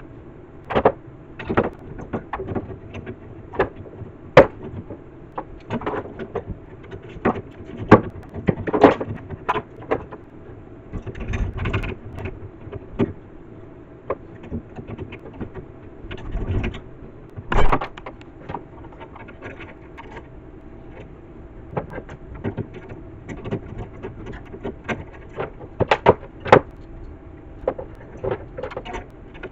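Irregular clinks, clanks and knocks of hand tools and metal hardware being handled while fitting car body panels and their hinges, a few of them sharper and louder, over a faint steady hum.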